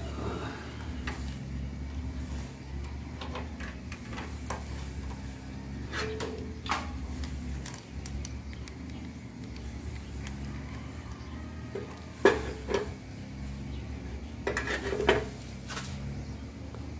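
Steel roller chain clinking and rattling as it is handled and fitted over the gearbox and engine sprockets, in irregular light metal clicks with two louder clanks late on. A steady low hum runs underneath.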